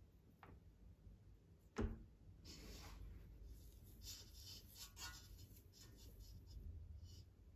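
Faint rustling and scraping of a hand working whole wheat flour and dough against a stainless steel mixing bowl, after a single knock a little under two seconds in.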